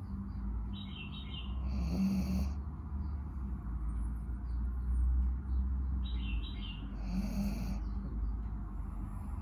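A dog snoring in its sleep: two snoring breaths about five seconds apart, each opening with a brief high squeak and followed by a noisier rasp.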